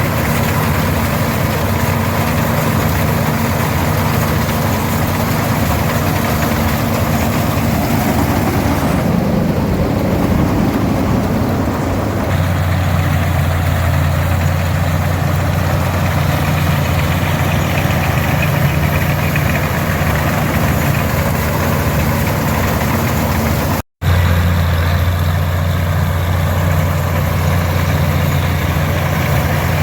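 Farmall 460 diesel tractor's six-cylinder D-282 engine running steadily while driving an International 82 pull-type combine. The engine note shifts about a third of the way in, and the sound drops out for an instant near the end.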